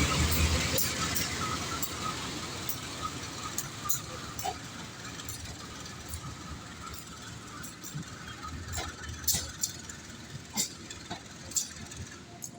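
Passing train rumbling loudly at first, then fading steadily as it moves away. It leaves a quieter rushing noise broken by scattered sharp clicks.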